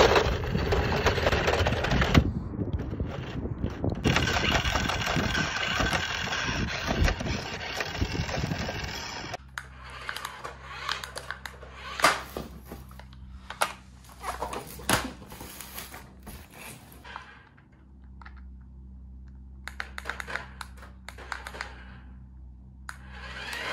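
Toy remote-control pickup truck driving over dirt and gravel: its small electric motor and gears whir under the crunch of the tyres for about nine seconds. It then gives way to a quiet, steady low hum with scattered sharp clicks.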